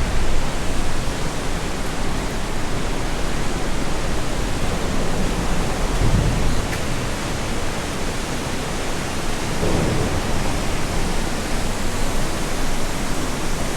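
Steady rush of water pouring out of a dam outlet, an even hiss-like roar with no breaks.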